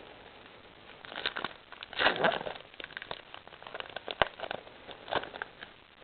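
Handling of trading cards and a foil booster-pack wrapper: irregular crinkling and rustling with a few sharp clicks, the loudest crinkle about two seconds in and a single sharp click a little after four seconds.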